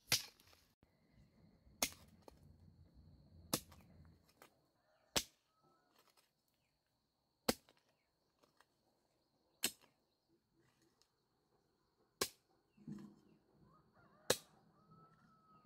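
Hoe chopping into dry soil: eight sharp strikes, about one every two seconds.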